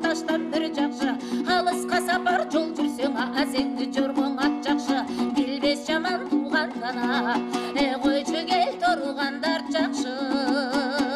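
A folk song: a plucked string instrument strummed in a fast, even rhythm, with a voice singing over it.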